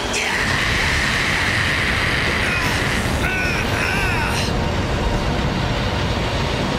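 Anime energy sound effects for a power-up: a loud, steady rushing rumble of the aura and wind. A high whine drops sharply at the start and then holds, and short warbling tones come and go about three to four seconds in.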